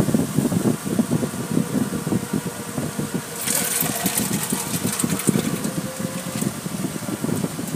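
Cloth strips of an automatic car wash's hanging curtain slapping and rubbing across a car's windshield, heard from inside the car as rapid, irregular thuds over a steady machinery hum. A hiss of water spray comes in about three and a half seconds in and lasts a couple of seconds.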